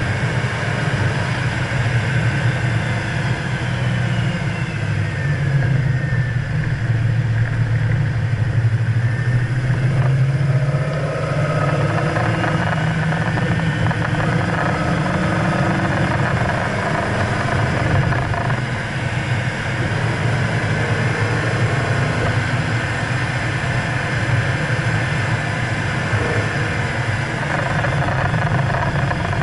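BMW E92 M3's 4.0-litre V8 running hard at speed. The engine pitch falls over the first few seconds and climbs again around the middle as the revs drop and build.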